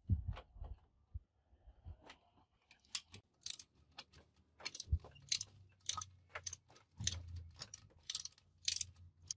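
A socket ratchet wrench clicking as it is swung back and forth on a bolt of a rusty truck air compressor, loosening it. A few dull knocks of metal on metal come first, then from about three seconds in a run of sharp clicks, several a second.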